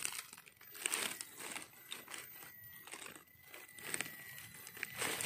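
Dry leaf litter and soil rustling and crackling under a hand that digs around a wild mushroom to pick it, in irregular crunchy bursts, loudest about a second in and again near the end.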